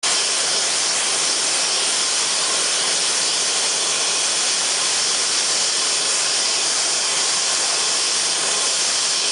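Steam hissing loudly and steadily from a stationary steam tank locomotive as it vents steam at the platform.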